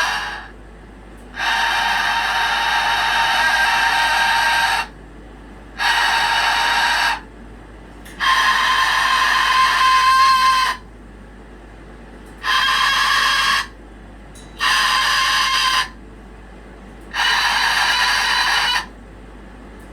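A pet animal's loud, long, high-pitched calls, repeated six times. Each call is held steady for one to three seconds, with short pauses between.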